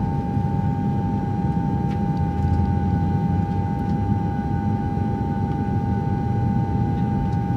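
Jet airliner in flight, heard from inside the cabin: a steady low rumble with a steady hum above it.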